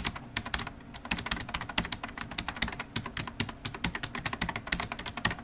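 Computer keyboard typing sound effect: a fast, uneven run of keystroke clicks, several a second.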